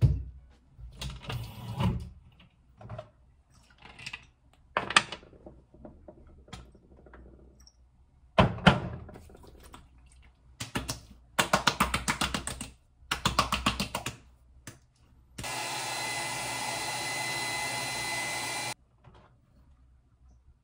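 Hands handling skincare bottles, then patting toner and lotion into the face in quick runs of light slaps, many a second. Near the end comes a steady hiss of about three seconds that stops abruptly.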